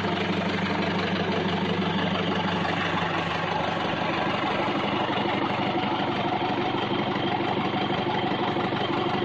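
Isuzu 4BD1-T four-cylinder turbo diesel engine idling steadily in a Land Rover Series III.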